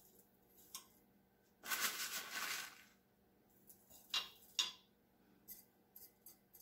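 Rustle of a paper envelope as dry onion soup mix is scooped out of it with a metal spoon, lasting about a second. Then two sharp clicks and a few faint ticks as the spoon sprinkles and spreads the mix on the roast in the crock pot.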